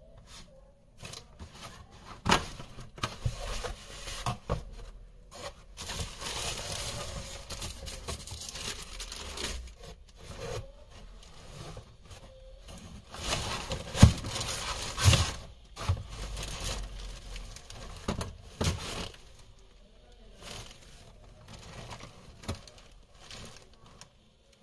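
Hands handling packaging, with rustling and crinkling of paper, tissue and a cardboard shoebox as sneakers are unpacked, and sharp knocks and taps scattered throughout. The loudest knock comes about fourteen seconds in.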